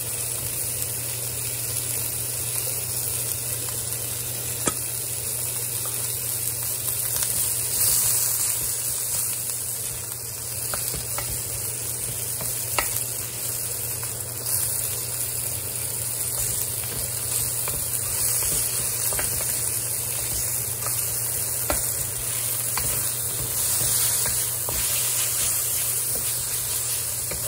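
Sliced beef and garlic sizzling in a hot wok, stirred with a wooden spatula that scrapes and knocks against the pan now and then. A steady low hum runs underneath.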